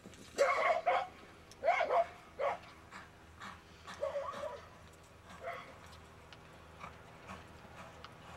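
Short animal calls: several in quick succession in the first two and a half seconds, another around four seconds in, then a few fainter ones.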